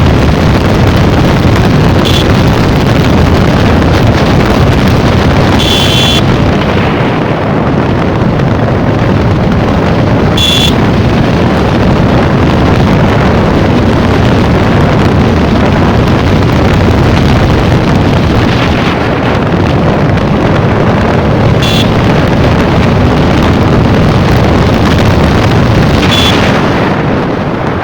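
Heavy wind rushing over the microphone on a moving Yamaha MT-15 motorcycle, with the bike running under it. A few short high-pitched blips cut through several times, and the noise drops off at the very end.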